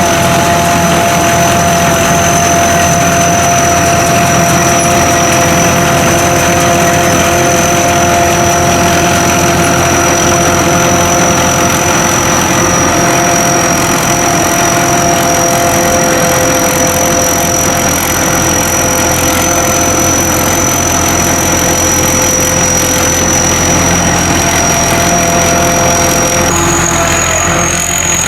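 Sakpattana SS-200 mini combine harvester running steadily while harvesting, a continuous engine drone with a steady high machine whine. Near the end the whine steps up in pitch.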